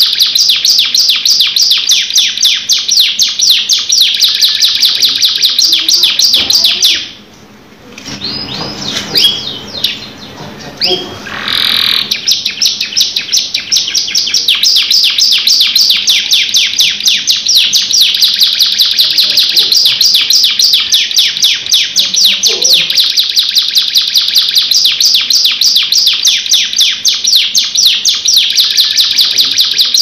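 Domestic canary singing a long, fast rolling trill of rapidly repeated high notes. About seven seconds in it breaks off for a few seconds with softer, lower sliding notes, then goes back into the trill.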